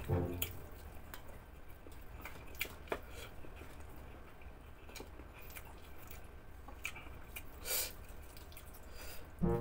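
Quiet close-up eating sounds: small wet clicks and squishes of fingers pulling fried chicken apart, with chewing. One brief louder rustle comes near the end.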